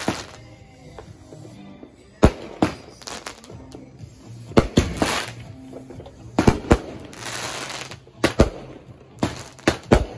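Consumer aerial fireworks going off overhead: about a dozen sharp bangs at uneven intervals, some in quick pairs, with a burst of crackling about seven seconds in.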